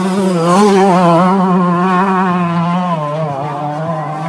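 Dirt bike engine held at high, fairly steady revs, its note wavering slightly and dropping a little about three seconds in.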